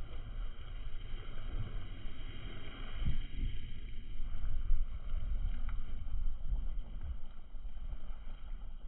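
Wind buffeting the microphone outdoors by a river: an uneven, gusty low rumble.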